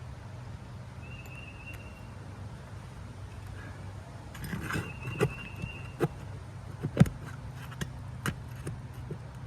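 Pry bar working at the nails under asphalt roof shingles: a run of sharp knocks and taps in the second half, the loudest about seven seconds in, with brief high squeaks. A steady low hum runs underneath.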